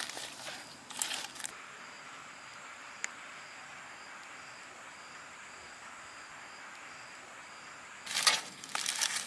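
Banana-leaf fish parcels being handled and turned over on a wire grill, the leaves rustling, for about the first second and a half. Then a steady outdoor hiss with an insect chirping evenly about twice a second, until more rustling and knocking of the parcels near the end.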